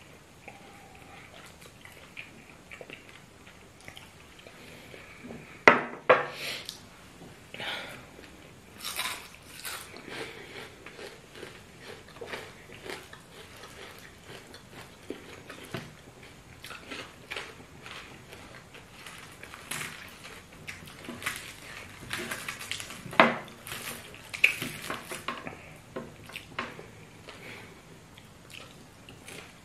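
Two people eating with their hands: chewing and the handling of fried fish and banku on ceramic plates, with scattered clicks and a few sharp knocks of dishes, two close together about six seconds in and the loudest later on.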